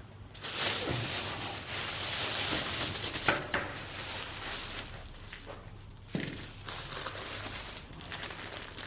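Plastic bag rustling and crinkling as it is handled, loudest over the first few seconds, then quieter, with a few sharp clicks.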